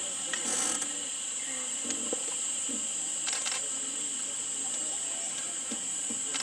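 A steady high-pitched hiss runs throughout, with faint distant voices murmuring and a couple of brief clicks, one about half a second in and one about three and a half seconds in.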